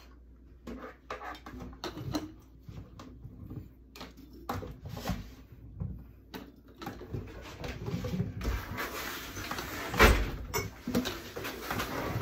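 Irregular clinks and knocks of cubed potatoes and a plastic canning funnel against glass canning jars as the jars are packed, growing busier toward the end, with the loudest knock about ten seconds in.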